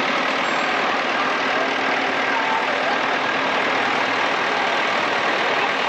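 A parade float's vehicle engine running slowly and steadily at low revs, under a continuous outdoor hubbub.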